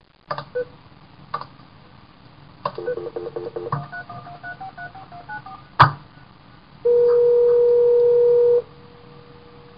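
Telephone dialling: a few clicks, then a quick run of short touch-tone keypad beeps as a number is punched in, a sharp click, then a steady ringing tone on the line for a little under two seconds that drops to a faint tone near the end.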